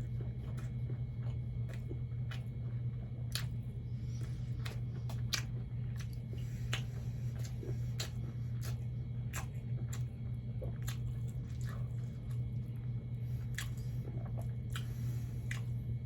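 Close-up mouth sounds of eating fried catfish with rice: chewing with irregular wet clicks and smacks, over a steady low hum.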